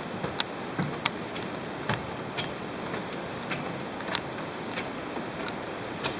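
Steady hiss of heavy rain, with irregular sharp ticks and clicks over it, roughly one or two a second.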